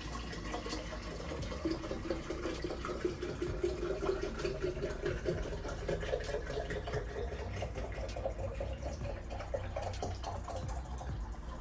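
Juice poured from a bottle into a juice jar, glugging steadily. The pitch of the filling sound rises slowly as the jar fills.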